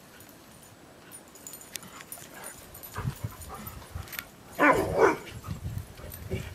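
Dogs playing rough with each other, with two short, loud barks a little past halfway.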